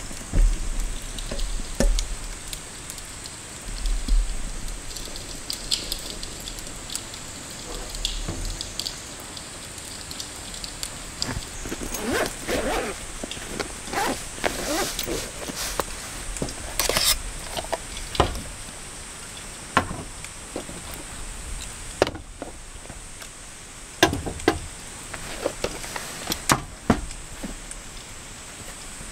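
Hands handling camping gear on a hard table: scattered sharp knocks and clicks, and a run of rasping strokes about halfway through as a fabric gear case is unzipped and opened. Steady rain and wind noise sits underneath, with low wind rumble near the start.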